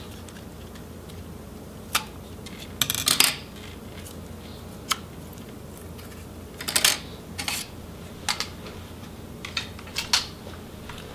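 Scattered sharp clicks and light knocks of small plastic and metal laptop parts being handled: a 2.5-inch hard drive having its SATA connector board and mounting bracket pulled off, then set down. Some clicks come in short quick runs, about three seconds and seven seconds in.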